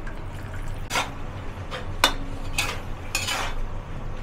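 Rice wine poured into a hot wok, then a metal spatula scraping and clanking against the wok as cabbage and pork are stir-fried, about one stroke a second, one of them leaving a brief metallic ring.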